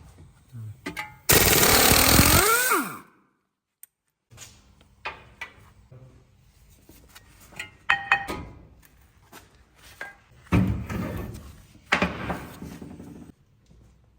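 Mechanic's tool work on a car's wheel hub: a loud power-tool burst lasting about a second and a half near the start, then scattered knocks, a short metallic ring and clatter.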